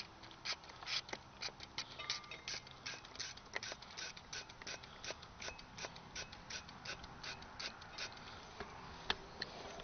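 Rapid squirts from a hand trigger spray bottle, about three a second, spraying fuel into the intake of a stalled Speedex garden tractor engine to prime it for a restart; the engine itself is not running.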